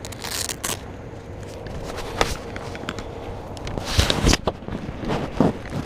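Close rustling and scattered clicks and knocks from fishing gear or clothing handled right against the microphone, loudest about four seconds in.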